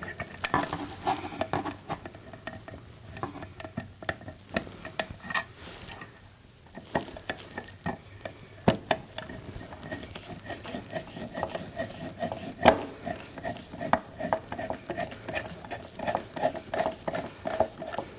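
Irregular small metal clicks and scrapes from hand work on an electrical wall outlet as it is fitted back into its wall box.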